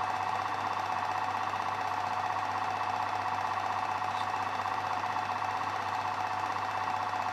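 Film projector running: a steady, unchanging mechanical clatter with a low hum beneath.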